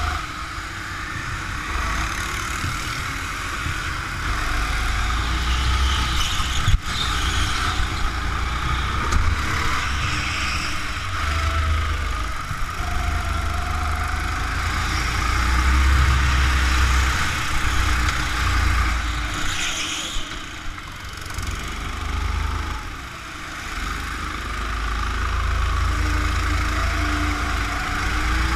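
Go-kart engine running while lapping, heard from on board the kart, with a low rumble that swells and fades through the corners. One sharp knock about seven seconds in.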